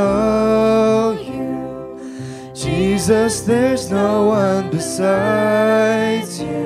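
Worship band playing a slow song: a lead vocal holding long notes over keyboard and electric guitars.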